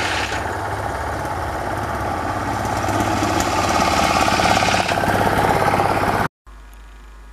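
Railway motor trolley's small engine running with a rhythmic beat as the trolley comes up and passes close by, growing louder until it cuts off abruptly about six seconds in, leaving a faint steady hum.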